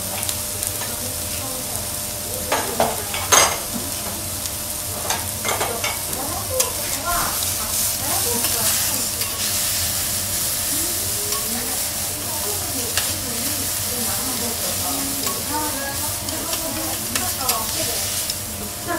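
Diced chicken, onion and mushrooms sizzling on a teppanyaki steel griddle, with the clicks and scrapes of a metal spatula and fork turning and chopping them; one sharp clack about three seconds in is the loudest.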